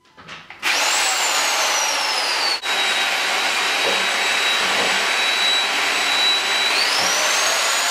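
Corded electric drill running at speed in a bowl of egg and milk, beating them. Its high whine rises quickly as it spins up, then drops and holds steady, with a momentary break about two and a half seconds in, and climbs again near the end.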